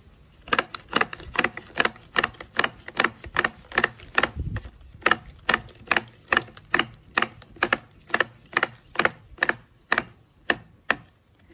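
Universal Speed Feed trimmer head clicking as its top is turned against the back base to wind trimmer line in: a long, even series of sharp clicks, about three a second.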